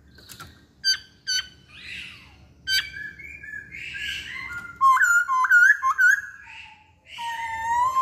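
Caged masked laughingthrush (poksay Hongkong) singing: a few sharp chirps, then a quick series of short rising whistles and one long held whistle near the end.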